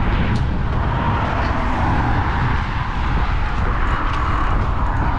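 Steady road-traffic noise from cars passing on the bridge: a low rumble with tyre hiss that swells and eases as vehicles go by.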